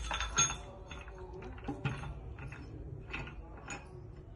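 Metal clicks and clinks from a pipe vise as its screw handle is turned to tighten it, with a short ringing clank near the start and a few scattered clicks after.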